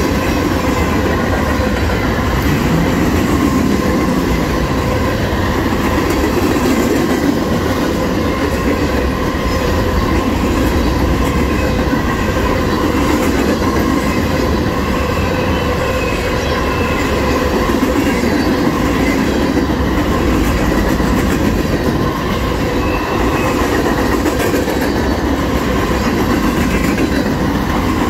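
Freight train cars rolling past: a steady rumble of steel wheels on the rails, with faint steady high ringing tones over it.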